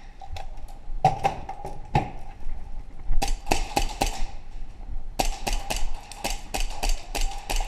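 Airsoft guns firing: a few single shots, then a short string, then a longer run of quick shots at about five a second starting about five seconds in.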